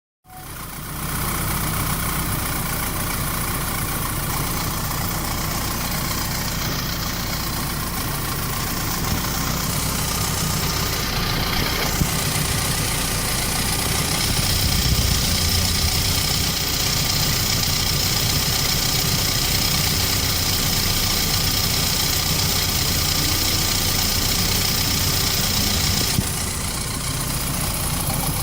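BMW E36 318i's inline four-cylinder engine idling steadily on a test run after a thermostat replacement. A higher steady hiss joins about halfway through and stops shortly before the end.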